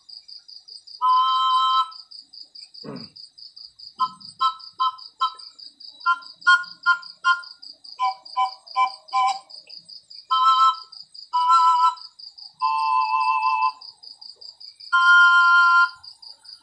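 Bamboo harmonic pan flute in C major, two pipes blown together so every note sounds as a two-note chord, playing a short tune. A run of quick short notes is followed by longer held notes, one with a wavering vibrato and a last long one near the end. Crickets chirp steadily in the background in a fast pulsing trill.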